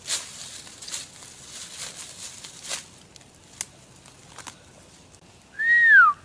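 Footsteps crunching through dry leaf litter for the first few seconds. Near the end a person whistles one loud note that holds and then slides downward, a mock wolf call.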